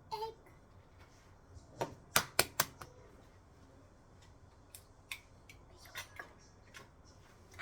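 Utensil clicking and knocking against a mixing bowl while stirring pancake batter: scattered sharp clicks, with a quick run of three or four about two seconds in.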